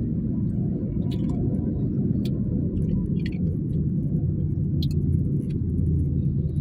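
Steady low rumble of a moving car's engine and road noise, heard from inside the cabin, with a few faint clicks.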